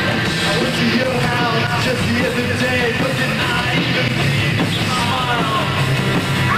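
Live punk rock band playing loud and continuous, with a pitched lead line bending over the full band.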